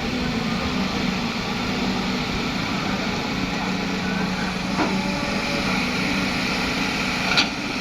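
Heavy diesel machinery running steadily at a constant speed, with a faint knock about five seconds in and a sharper, louder knock near the end.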